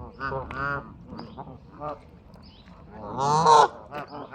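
Geese honking: a few short honks in the first second, then one loud, harsh honk about three seconds in.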